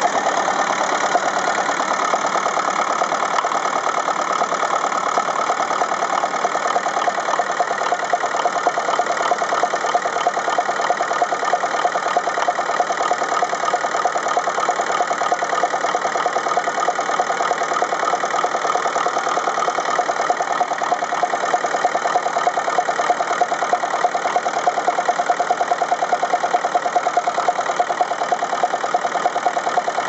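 Ferguson TEF-20's four-cylinder diesel engine idling steadily, freshly started from cold. It is running on three of its four cylinders: number three cylinder is not firing, and the owner blames its injector nozzle.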